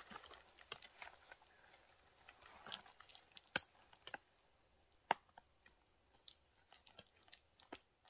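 Faint, scattered clicks and crinkles of backpacking gear being handled, with two sharper clicks about three and a half and five seconds in.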